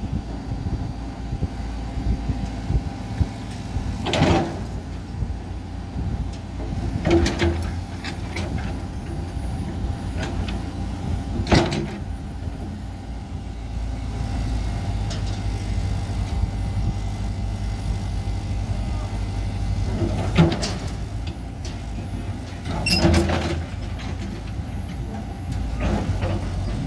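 Heavy excavator diesel engines running steadily, with sharp metal clanks every few seconds as a Caterpillar excavator works a fire-gutted excavator onto a low-loader trailer.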